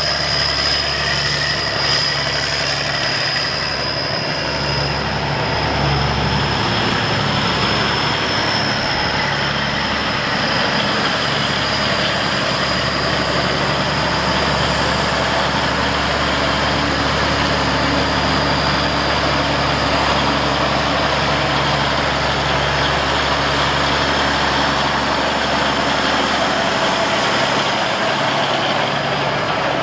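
Steiger 4WD tractor's Cummins 350 Big Cam inline-six diesel running steadily as the tractor moves about, with a steady high-pitched whine over the engine note that fades in the second half.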